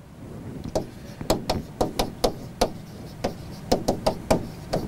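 A pen tapping and knocking against a writing board as words are written by hand. There are about a dozen short knocks at an uneven pace of two to three a second, one for each stroke or letter.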